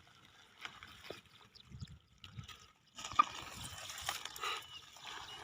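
Water trickling and splashing as a fishing net is worked through shallow rice-field water, faint at first and busier from about three seconds in, with one sharp click there.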